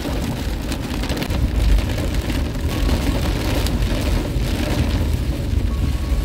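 Heavy rain falling on a moving car's windscreen and roof, heard from inside the cabin over a steady low rumble of road noise.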